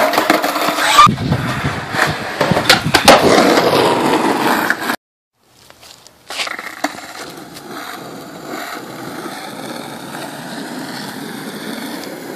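Skateboards on pavement: several sharp clacks of the board popping and landing over a rolling rattle of wheels on concrete. About five seconds in the sound cuts out for a second, then a steadier, quieter rumble of wheels rolling on asphalt follows.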